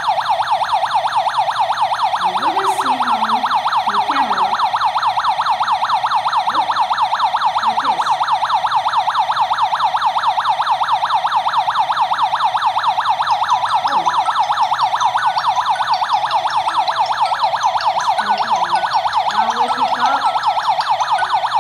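Burglar alarm panel's built-in siren sounding continuously in a fast, repeating electronic warble, set off by a door sensor being opened: the alarm has been triggered.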